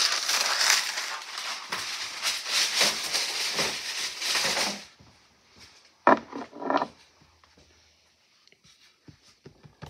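Parchment paper rustling and crinkling as a sheet is handled and torn from the roll; it stops about five seconds in. A brief vocal sound follows, then only faint taps.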